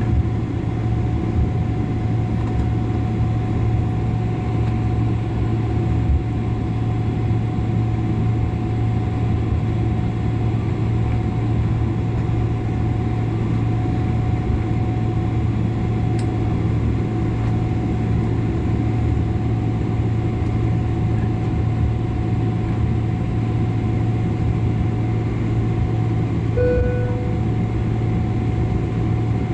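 Steady cabin noise inside a Boeing 777-300 on the ground, its engines running at low power before takeoff: an even low hum and rush with a constant thin high tone. A short single tone sounds near the end.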